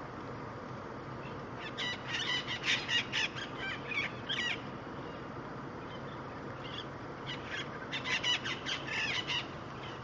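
A flock of Abaco parrots, the Bahamian race of the Cuban amazon, squawking in two bursts of harsh, rapid calls, about two seconds in and again about eight seconds in, with a single call in between.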